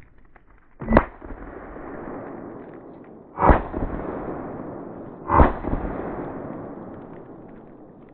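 Three gunshots, about two and a half and then two seconds apart, each followed by a long rolling echo that fades slowly.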